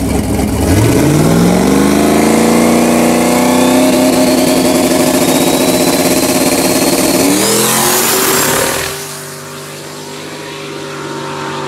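Big-turbo Fox-body Ford Mustang's engine revving up and held at high revs on the line, with a turbo whistle rising above it, then launching about seven seconds in as revs climb again. The sound falls away about nine seconds in as the car pulls off down the road.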